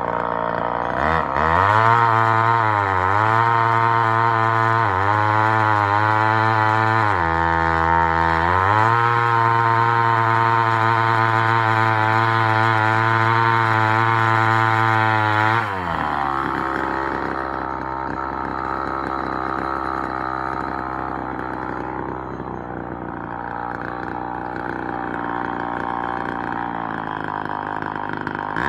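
Homelite Super XL Auto single-cylinder two-stroke chainsaw cutting through a log at high revs, the revs sagging and recovering several times as the chain bites. About halfway through, the saw drops to a lower, rougher running and stays there.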